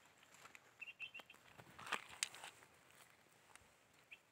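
Faint rustling and a few sharp clicks of footsteps and handling in dry grass as a freshly shot thrush is picked up off the ground, with a couple of brief high chirps about a second in.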